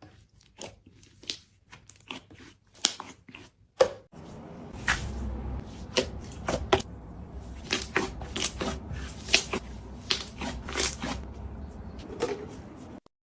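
Slime being squeezed and poked: irregular sharp pops and crackles, joined by a low steady hum about four and a half seconds in, all cutting off just before the end.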